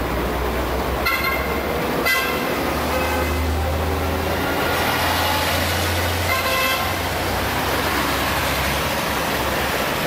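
Hong Kong street traffic with double-decker trams and buses: a steady low engine rumble, broken by short pitched signal tones about one, two and six and a half seconds in.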